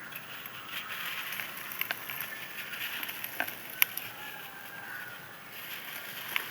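Dried, crispy sand clumps crumbling, giving a fine continuous crackle with a few sharp clicks scattered through it.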